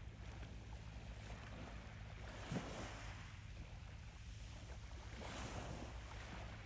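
Faint harbour-side ambience: wind gusting on the microphone over a low steady rumble, with a single short knock about two and a half seconds in.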